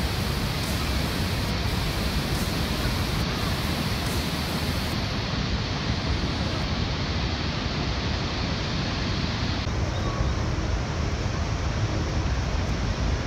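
Horseshoe Falls at Niagara pouring over its brink close by: a steady, even rush of falling water, heaviest in the low end.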